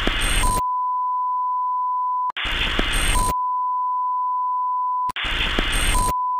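TV 'no signal' sound effect: short bursts of static hiss alternate three times with a steady test-tone beep, each beep lasting up to about two seconds and cutting off abruptly.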